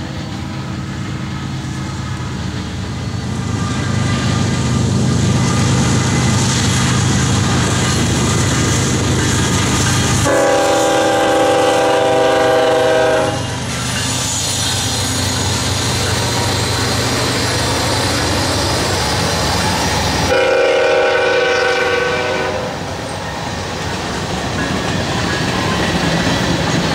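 Norfolk Southern freight train passing at speed: the diesel locomotive's rumble builds over the first few seconds, then a train air horn sounds two long blasts, about ten and twenty seconds in. Between and after them comes the steady rumble and clatter of loaded covered hopper cars rolling by.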